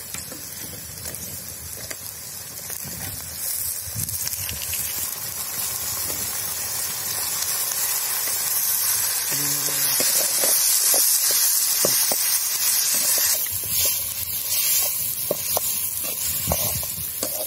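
Onions and curry leaves frying in hot oil in an iron kadai, with a steady sizzle that grows louder toward the middle as tomatoes go in. A steel ladle clicks against the pan while stirring near the end.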